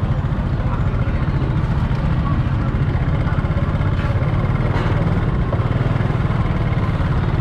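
A small engine idling close by: a steady, low, pulsing rumble that does not change.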